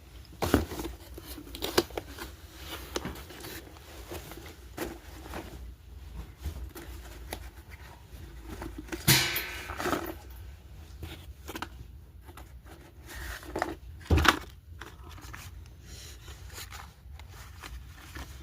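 Packaging of a box of slate pencils being handled and opened: irregular rustling, crinkling and clicks, with a longer tearing noise about nine seconds in and a sharp knock about fourteen seconds in.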